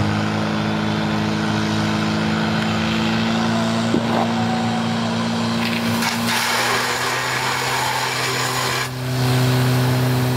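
Portable fire pump's engine held at a steady high speed during a firesport attack. A broad hiss rises over it for a few seconds past the middle, and the engine grows louder near the end.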